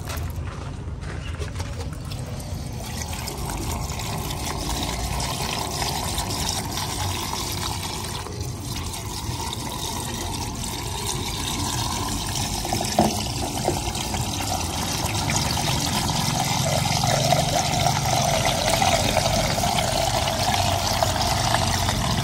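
Liquid pouring in a steady stream from a plastic jerrycan through a plastic funnel into a JCB 3DX backhoe loader's filler neck. The pour grows louder in the last third, with one small click partway through.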